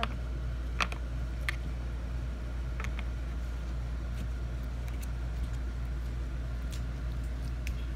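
A steady low hum, with a few light clicks and taps as a small plastic slime container is handled and its hinged lid is moved.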